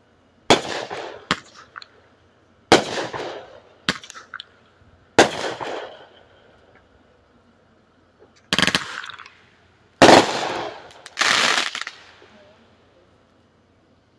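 Fireworks going off: sharp bangs every second or two, each trailing off, then after a short lull three longer, rougher bursts.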